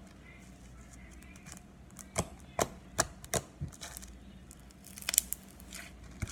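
Slime being pressed and squished by hand for ASMR, giving sharp pops and clicks: four spaced about half a second apart starting about two seconds in, then a quick cluster near the end.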